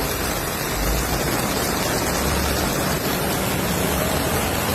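Hurricane storm noise: a loud, steady rushing hiss, cut off abruptly near the end.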